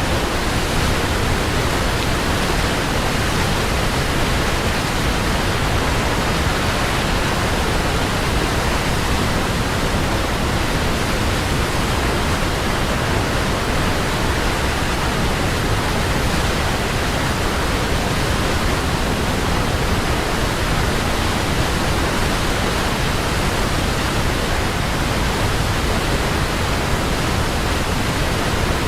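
Waterfall: an even, unbroken rush of falling water with no distinct splashes or changes.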